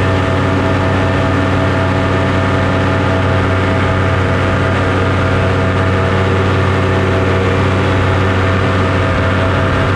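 Engine of a flying aircraft heard on board, running steadily at constant power: an even low hum with steady overtones that hardly change in pitch.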